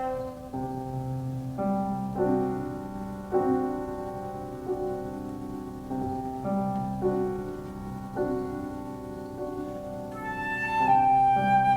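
A slow classical passage for piano and flute, mostly piano, with sustained chords struck every second or so. Near the end a flute comes in with a louder, high held note.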